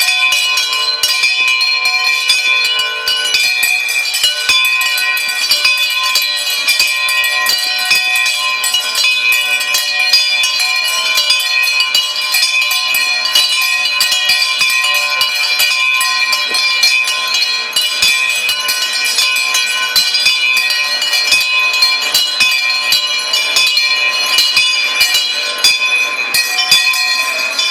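Many bells rung all at once as fast as they can go: a continuous, dense clanging of overlapping high ringing tones with strikes coming too thick to count.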